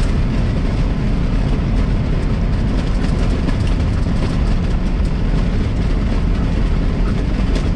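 Peterbilt 389 semi truck cruising at highway speed, heard from inside the cab: a steady low rumble of engine and road noise.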